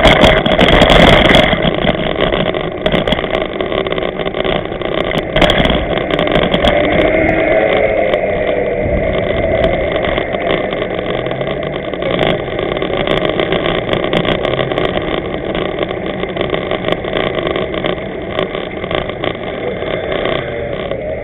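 Steady wind and road noise picked up by a bicycle-mounted camera's microphone while riding, with scattered short knocks and rattles from bumps.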